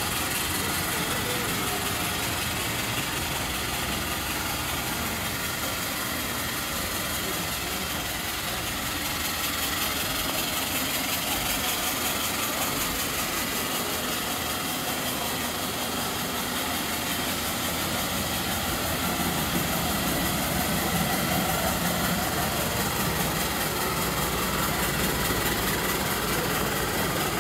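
Steam locomotive standing in steam on a turning turntable: a steady hiss with a low mechanical rumble under it, a little louder about two-thirds of the way in.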